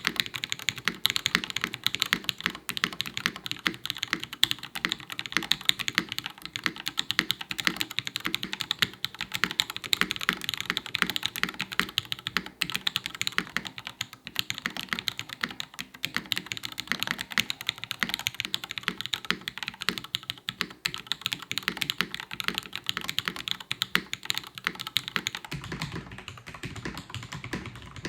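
Continuous fast typing on a tray-mounted Mason 60 mechanical keyboard with Strawberry Ice linear switches, a brass plate and PBT keycaps: a dense, unbroken clatter of keystrokes that takes on a deeper tone near the end.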